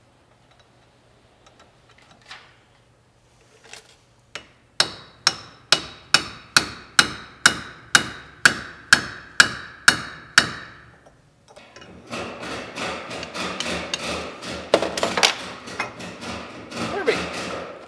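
Hammer tapping a driver to seat a new bushing in a starter motor's end housing: about a dozen sharp, ringing metal strikes, roughly two a second. Then a few seconds of quicker, noisier metallic clatter.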